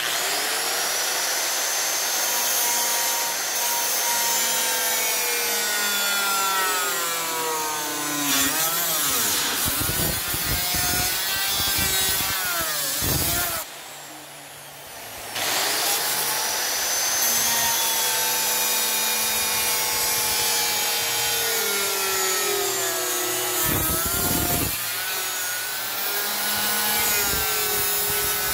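Makita circular saw fitted with a thin 1 mm cutting disc, cutting through the van's sheet-steel roof panel; its whine sags in pitch as the blade loads up. About halfway through it stops for a couple of seconds, then spins back up and carries on cutting.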